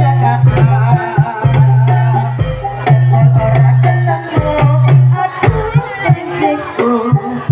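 Live jaranan gamelan accompaniment. Hand-drum (kendang) strokes drive a lively pattern over deep tones held for about a second at a time, with repeating melodic lines above.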